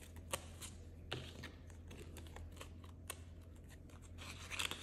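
Faint, scattered clicks and soft taps of polymer banknotes being handled and counted, with a louder rustle near the end as a clear plastic envelope in a ring binder is handled.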